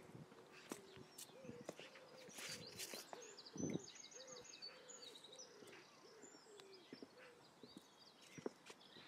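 Faint birdsong: a pigeon cooing in a run of low, evenly spaced notes, with a small bird chirping high briefly around the middle.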